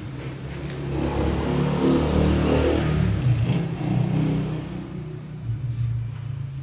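A car engine running and revving, growing louder about a second in and dying down over the last few seconds.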